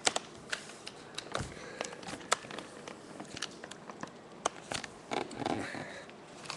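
Irregular sharp clicks and crackles from small hard plastic GoGo's Crazy Bones figures being handled and knocked together, with a stretch of rustling about five seconds in.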